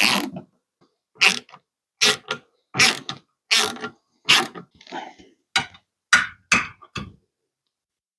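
A quick series of short, separate knocks and clanks of hand-tool and hardware work, about one every two-thirds of a second, each cut off abruptly.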